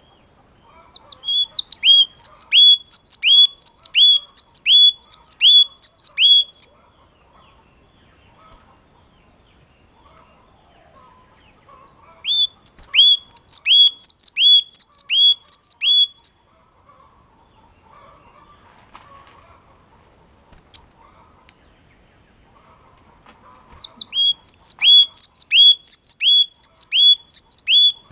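Yellow-cheeked tit (chi chi mào) singing in three bouts, each a clear two-note phrase repeated about two times a second for four to five seconds: a high note, then a lower note slurring down. The bouts are separated by pauses of several seconds.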